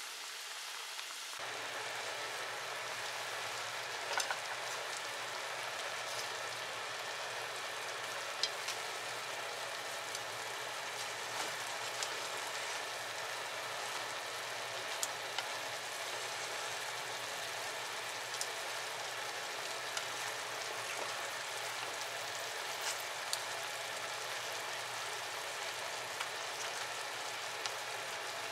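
Soy-and-sake simmering sauce bubbling and sizzling steadily in a frying pan around chicken wings as it reduces, with a few faint clicks scattered through it.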